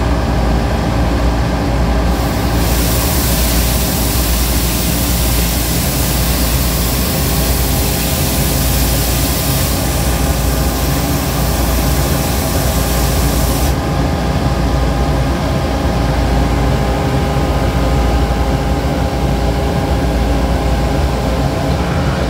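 Schmidt Swingo 200+ compact street sweeper running steadily, with a low rumble and several steady tones. A loud hiss joins about two seconds in and cuts off suddenly about fourteen seconds in.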